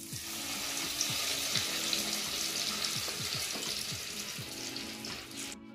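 Breadcrumb-coated bread sandwich deep-frying in hot oil in a steel kadhai: a dense, steady sizzle that starts as it goes into the oil and eases slightly near the end.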